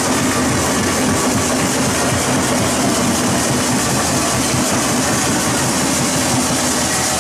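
Steady din of a basketball arena crowd during live play, an even wall of noise without distinct cheers or impacts.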